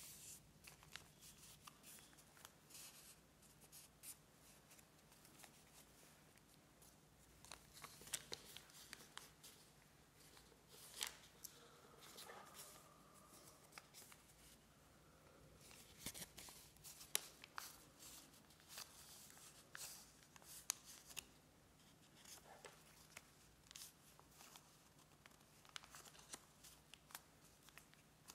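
Faint rustling and sharp little crackles of a square sheet of origami paper being folded and creased by hand, in scattered short bursts.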